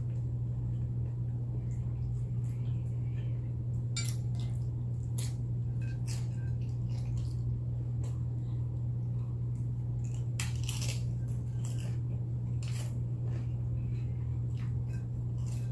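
Close-up eating of hard tortilla-chip nachos: scattered crisp crunches and clicks, a second or more apart, over a steady low hum.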